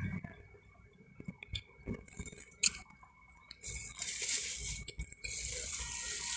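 A black plastic takeout container and fork handled close to the microphone: a few light clicks and taps, then a sustained scraping rustle of plastic starting a little past halfway as the container is lifted.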